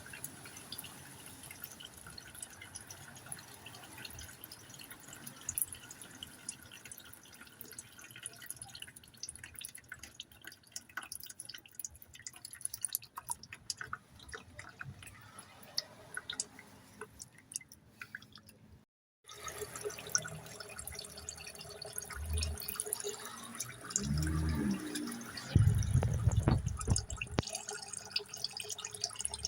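Transmission oil dripping from a Mini F60's gearbox into a drain pan, a run of scattered drips. After a brief break, heavier low knocks and handling noise come near the end and are the loudest sounds.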